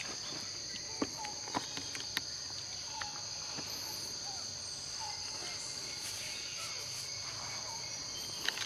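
Steady, high-pitched insect drone of forest insects such as cicadas or crickets, unbroken throughout, with a few sharp clicks in the first couple of seconds.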